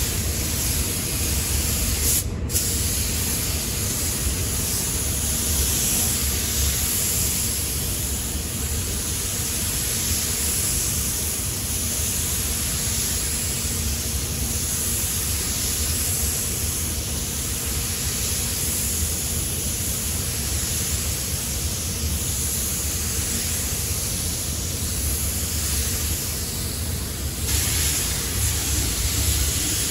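Gravity-feed spray gun on a compressed-air hose spraying paint onto a truck cab, a steady hiss of air and atomised paint, broken off for a moment about two seconds in. A low steady rumble runs underneath.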